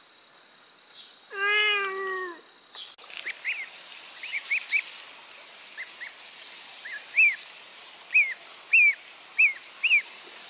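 A cat meows once, a long call that falls slightly in pitch, about a second in. Then downy yellow waterfowl chicks peep repeatedly, short high peeps coming about twice a second over a steady outdoor hiss.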